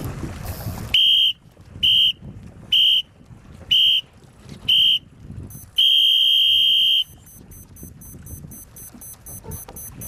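Electronic race-start timer beeping: five short high beeps about a second apart, then one long beep marking the start. Wind and water noise sit underneath.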